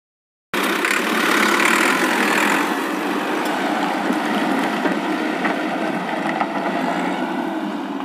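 Excavator engine running steadily, a sound effect that starts abruptly about half a second in and carries little deep low rumble.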